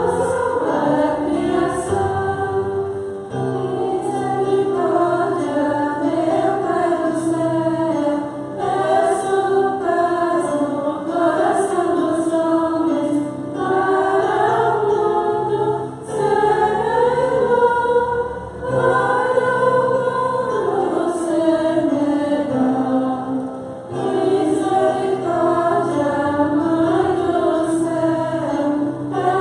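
Small choir of women's voices singing a Christmas cantata in phrases, accompanied by an electronic keyboard holding sustained low chords.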